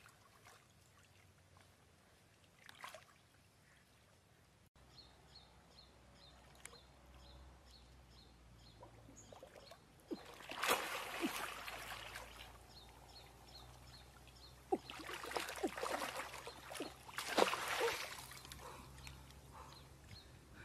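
Splashing and sloshing in shallow muddy water, in three bursts about ten, fifteen and seventeen seconds in.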